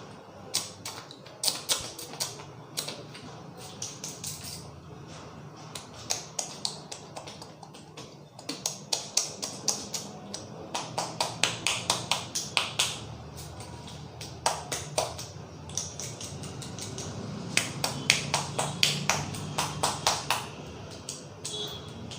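A barber's hands tapping and slapping on a person's head during a head massage: runs of quick sharp smacks, several a second, with short pauses between the runs.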